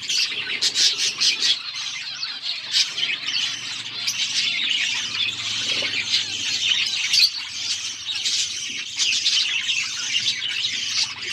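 A group of budgerigars chattering and chirping nonstop, many short calls overlapping into a dense warble.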